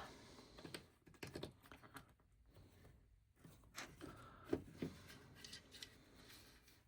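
Faint, irregular clicks and light rattles of small plastic LEGO pieces being handled and snapped together.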